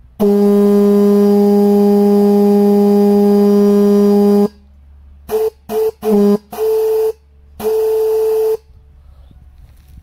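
Vintage International truck air horn, a single chrome trumpet fed by compressed air, sounding one long steady blast of about four seconds, then five short toots. In the short toots the higher note, an octave up, is the strongest. The horn is still unrepaired here.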